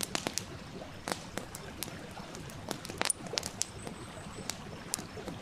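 Wood fire crackling, with irregular sharp pops and snaps, over the steady rush of a stream.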